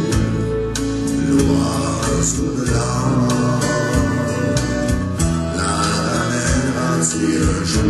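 Music: an instrumental passage of a song, guitar-led, with no vocal line.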